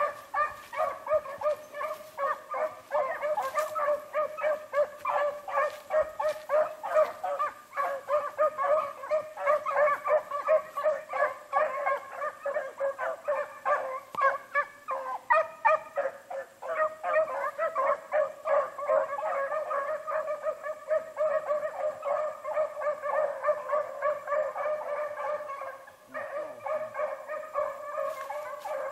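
A pack of beagles baying on a rabbit's track: several hounds giving tongue at once in a continuous, overlapping chorus of short, rapidly repeated bays, with a brief lull near the end.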